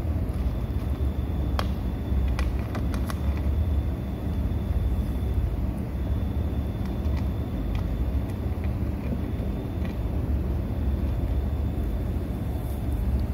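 Steady low rumble, with a few sharp clicks of a kitten crunching dry kibble, mostly a couple of seconds in.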